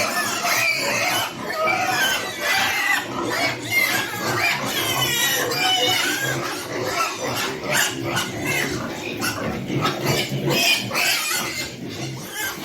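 Many pigs calling at once: a continuous din of overlapping high-pitched squeals and grunts.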